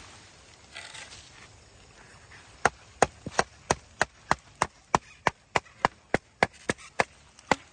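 Rapid, even chopping strokes, about three a second, starting a few seconds in.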